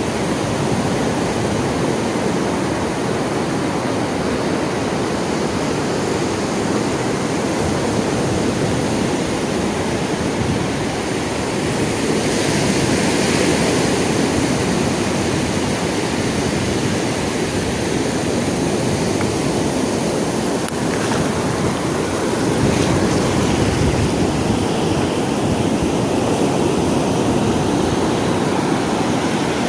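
Sea waves washing onto a shore: a steady rush of surf that swells louder twice, about twelve seconds in and again a little past two-thirds of the way.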